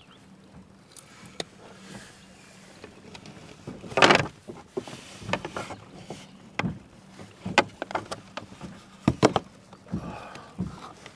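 Scattered knocks and clicks of hands handling gear and a caught largemouth bass on a kayak. The loudest is a short, noisy burst about four seconds in, and a quick pair of sharp clicks comes near the end.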